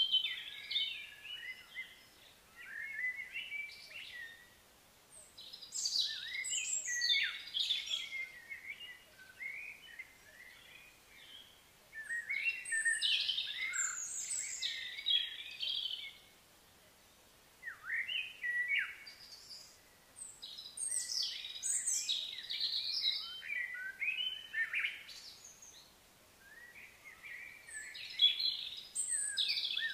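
Birds singing: bursts of high chirping and warbling phrases a few seconds long, broken by short pauses.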